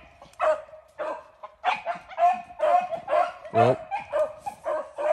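A pack of beagles baying on a rabbit's scent trail, several overlapping voices in quick calls, about three a second. About three and a half seconds in, one louder call drops in pitch.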